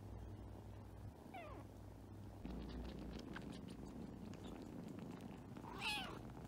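Young kittens resting and purring with a steady low rumble. There is a short, falling squeak about a second and a half in, and a louder brief meow near the end.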